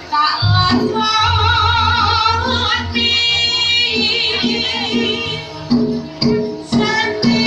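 A song: a woman's voice singing with a wide vibrato, holding one long note about halfway through, over a bass line and a steady beat.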